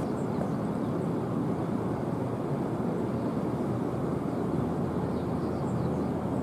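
A steady low rumble that holds level throughout, without clear tones or distinct strokes.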